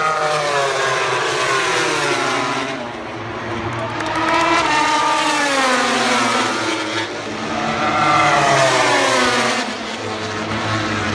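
MotoGP racing motorcycles' four-cylinder engines running at high revs on the track. The pitch climbs and drops with the throttle and gear changes, swelling in loudness three times.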